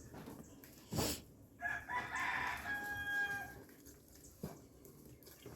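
A rooster crowing once, a single call of about two seconds, preceded about a second in by a sharp knock.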